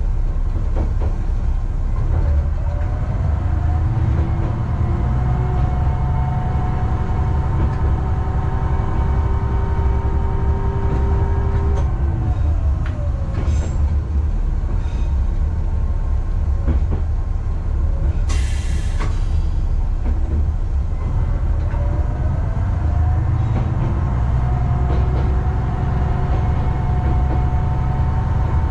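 Diesel railcar KR301 (ex-Shigaraki SKR300) running, heard from inside the car: a steady low rumble whose engine note climbs as it pulls away, drops about twelve seconds in as the throttle eases, and climbs again near the end. A short burst of hiss about two-thirds of the way through.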